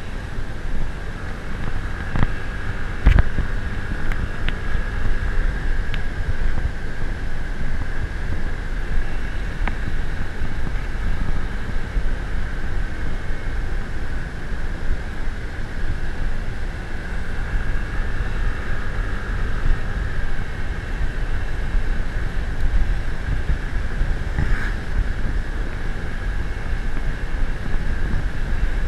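Steady engine and travel noise from a moving vehicle, with wind buffeting the microphone and a few sharp knocks or rattles, the loudest about three seconds in.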